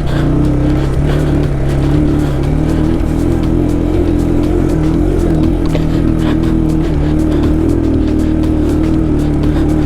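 Motorcycle engine running steadily under load on a continuous uphill trail climb, holding an even pitch throughout, with scattered light ticks and knocks on top.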